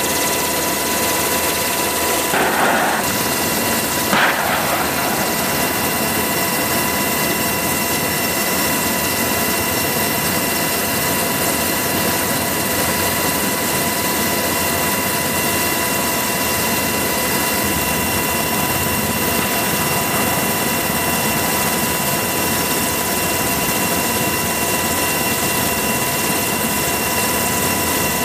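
AH-64E Apache helicopter in flight: a steady drone of turbine whine and rotor noise, with several high whining tones held throughout. Two brief louder bursts break in about two and a half and four seconds in.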